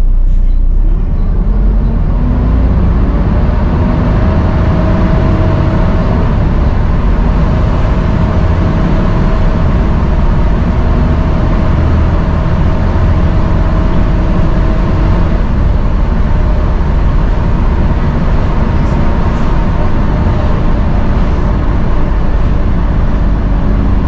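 Volvo B7TL double-decker bus's 7-litre six-cylinder diesel and drivetrain running steadily under way, heard from inside the bus. A loud, vacuum-cleaner-like 'hoover' whine sits over the rumble and is clearest in the first half.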